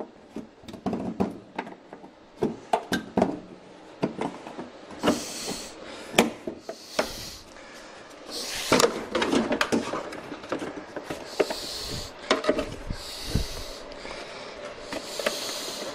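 Old plastic headlight unit of a 2000 Dodge Ram 1500 being forced out by hand from a tight, dented opening: irregular clicks and knocks, with scraping and rubbing from about five seconds in.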